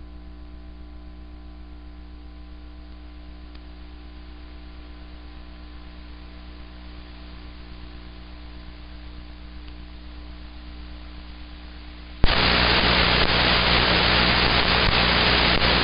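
Shortwave receiver in AM mode on a numbers station's unmodulated carrier, giving a low steady hum. About twelve seconds in the carrier drops out and loud static hiss suddenly takes over: the transmitter has gone off the air after signing off.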